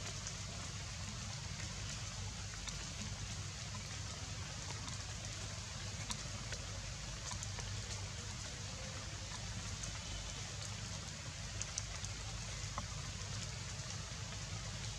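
Steady outdoor ambient hiss of forest background noise, with a few faint scattered ticks.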